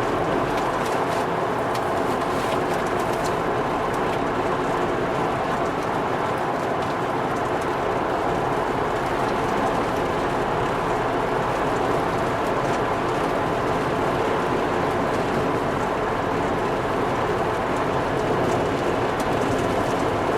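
A 2001 Volvo V70 T5 driving at a steady pace: an even wash of tyre and road noise with the engine running under it, with no sudden changes.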